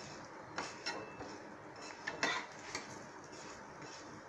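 Spatula scraping and tapping against a paratha on a hot tawa as oil is spread over it: a few short scrapes and light knocks over a faint steady hiss.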